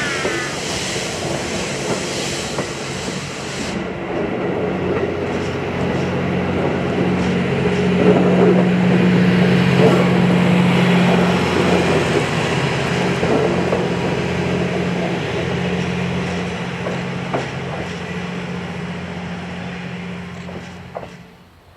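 Steam-hauled passenger train (D51 steam locomotive with 35-series coaches) running past, a steady rumble with a hum that grows louder and then fades, with scattered clicks from the wheels. It cuts off sharply near the end.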